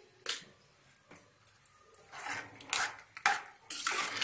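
A steel spoon knocks once against a metal pan, then stirs the thick tamarind curry in several quick scraping strokes from about halfway in.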